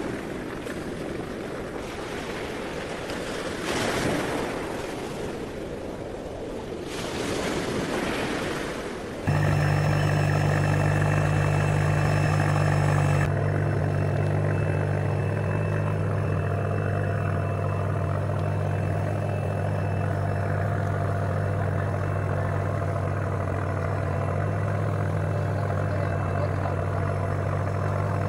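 Wind and sea noise rushing over the microphone, swelling a few times. About nine seconds in it cuts to the steady drone of a fishing boat's engine running under way, which holds to the end.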